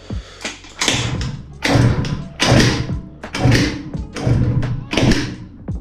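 Kickstarter of a 2001 Peugeot Speedfight 2 kicked six times, about one kick a second. Each kick is a thump as the 50 cc two-stroke with a DR Evolution sport cylinder turns over without firing. The kicks are refilling the float chamber, which was emptied for carburettor cleaning.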